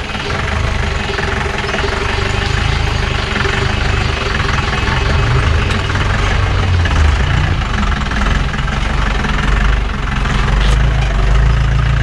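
Engine of a modified off-road vehicle running steadily at low revs, a continuous low rumble with a faint steady hum over it for the first half.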